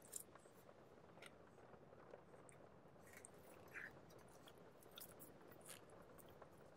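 Near silence with faint handling sounds: nitrile-gloved fingers rubbing and pressing a sticker onto a powder-coated metal tin, giving a few soft ticks and rustles.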